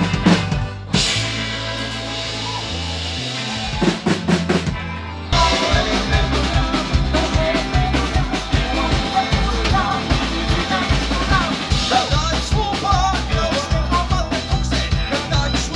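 Live rock-and-roll band playing with a drum kit, electric guitar and bass. About a second in the beat drops out to a quieter passage of slow held bass notes, and around five seconds in the drums and full band come back in with a fast, steady beat.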